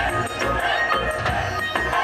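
Live music over a PA system at an outdoor stage concert, with a steady beat and heavy bass.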